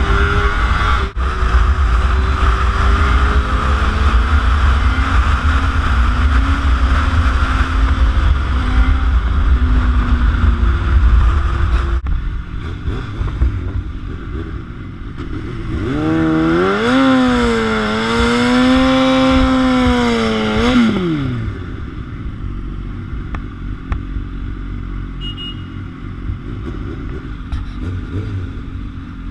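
Sportbike ridden at highway speed, engine running steadily under heavy wind rush on the microphone. After an abrupt change about twelve seconds in, the engine revs up in city traffic, holds the revs for about four seconds, drops back and idles.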